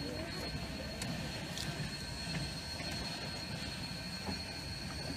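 Denver & Rio Grande Western 315, a 2-8-0 steam locomotive, rolling slowly tender-first along the track: a steady low rumble of wheels on rail with a few light clicks.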